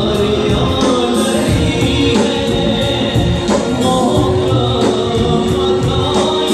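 Live worship band: a man sings a devotional song into a microphone over keyboard, electric guitar and conga drums keeping a steady beat.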